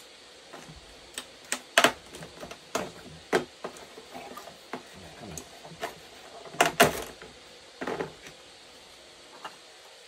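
Hard plastic gel blaster parts and packaging being handled: a string of sharp clicks and knocks, loudest about two seconds in and again near seven seconds, with a fan hissing steadily.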